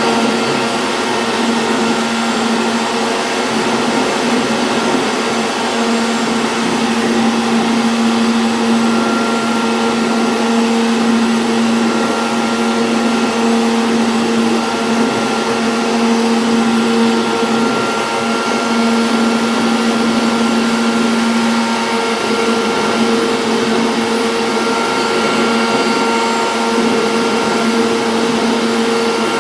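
CNC router spindle running steadily while carving a board, a loud hissing whine with a steady hum under it; the hum shifts in pitch about 22 seconds in as the cut changes.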